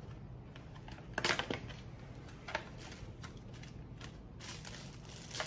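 A small white cardboard box being opened by hand: scattered scrapes and clicks of card rubbing on card, the loudest a little over a second in.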